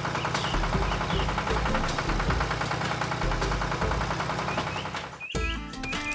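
A cartoon engine sound effect running steadily with a low pulse about once a second. About five seconds in it cuts off abruptly and a tune with clear, plucked-sounding notes starts.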